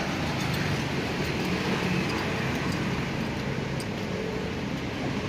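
Steady road traffic noise with the low hum of a vehicle engine running close by.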